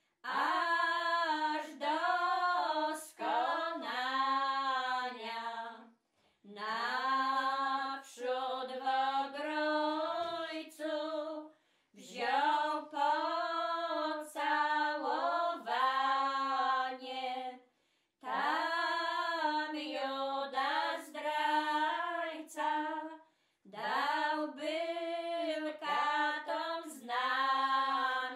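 Three women singing a Polish Lenten hymn unaccompanied, in phrases of about six seconds with short pauses for breath between them.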